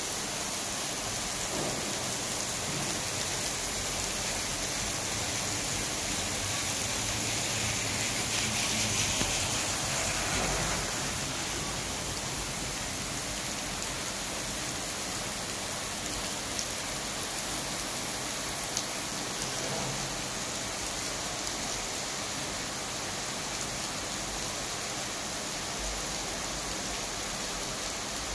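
Steady rain falling on a wet asphalt road and kerb, an even hiss that swells a little about a third of the way through.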